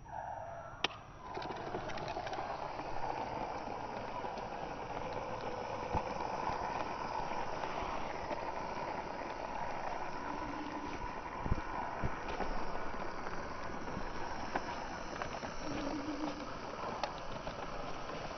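A click about a second in, then the small battery-powered DC motor of a homemade toy car running steadily as the car drives, its wheels rolling over rough concrete with a few light knocks.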